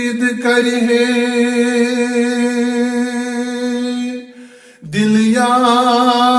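A man singing a Kashmiri naat with no instruments, holding one long steady vowel for about four seconds. He breaks off briefly near the end, then slides up into another held note.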